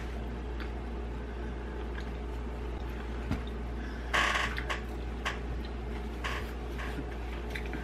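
Quiet room with a steady low hum, scattered faint clicks and a brief rustle about four seconds in, from reaching for and handling a flour tortilla at the dinner table.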